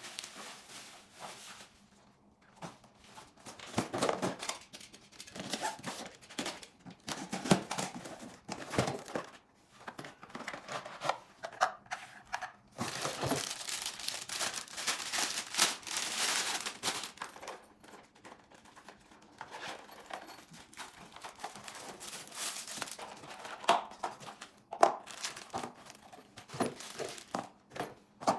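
Plastic wrapping crinkling and tearing as parts are unwrapped, mixed with cardboard boxes being opened and small parts set down in a run of irregular knocks and clicks. A long stretch of steady crinkling comes about halfway through.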